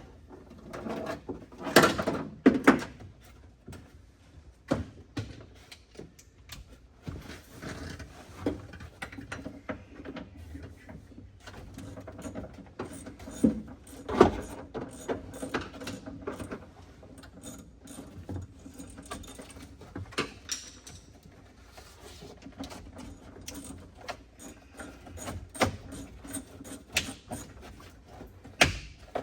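Hand tools at work on a car's dash: a socket ratchet clicking between scattered knocks and clanks of metal tools and parts, with a few louder hits about 2 and 14 seconds in.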